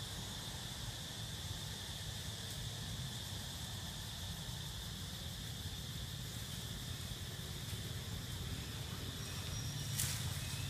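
Steady chorus of forest insects, a continuous high-pitched buzz, over a low background rumble. A single sharp click near the end.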